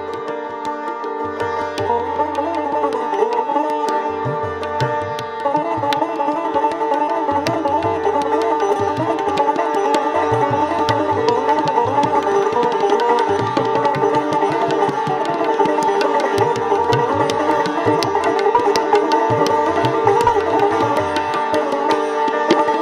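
Sitar and tabla playing Hindustani classical music: plucked sitar phrases over the ringing of its drone strings, which grow busier about five seconds in, with quick tabla strokes and recurring deep, held booms from the bayan drum.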